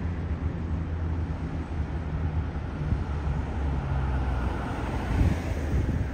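City street traffic: a steady low engine rumble from vehicles nearby, with the hiss of a passing car swelling about four to five seconds in.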